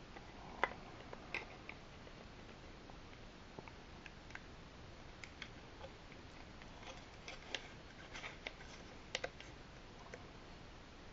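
Faint clicks and taps of small plastic toy-spaceship parts being handled as the wing panel of a Micro Galaxy Squadron TIE Advanced is worked off its hull by hand. Scattered light clicks, with one sharper click about half a second in and a quick run of clicks a few seconds before the end.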